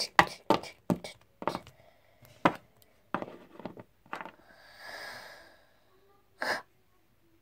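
Plastic toy figures knocked and tapped on a wooden tabletop as they are handled: about a dozen irregular sharp clicks, most in the first four seconds and one more near the end, with a soft breathy rush about five seconds in.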